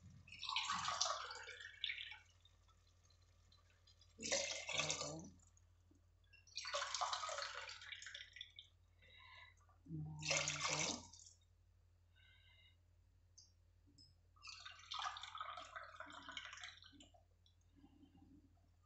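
Water poured from a glass into a pressure cooker of simmering chicken masala, about five separate pours of a second or two each with short pauses between.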